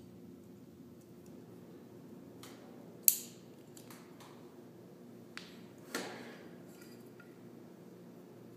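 Plastic and metal spotlight accessory parts being handled and fitted together: a sharp click about three seconds in, another about six seconds in, and a few faint ticks, over a steady low hum.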